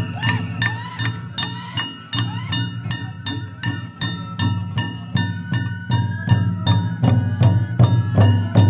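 Japanese festival hayashi music: a ringing metal percussion struck in a steady beat of about three strokes a second over a dense low drumming band.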